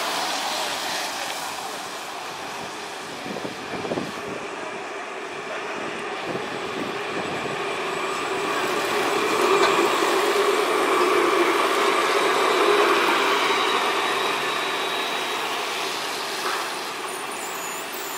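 An Alstom Citadis low-floor tram running along street track. It grows louder as it rolls past close by, about ten seconds in, with a steady electric whine and rail hum, then slowly fades as it moves away. Street traffic noise continues under it.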